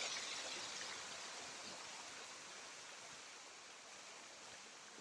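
Rushing water of a waterfall: a steady, even hiss that slowly grows fainter.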